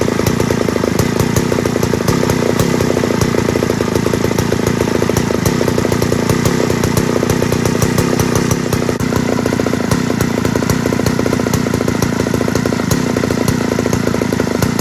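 Two-stroke chainsaw engine running at a steady speed, without revving.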